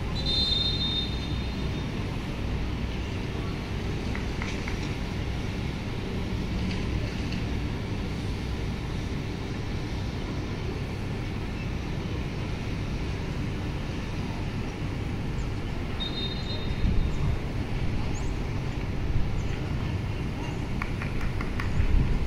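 Steady low outdoor rumble across the pitch, with a few louder bumps near the end. Two short, high referee's whistle blasts stand out, one just after the start and one about 16 seconds in.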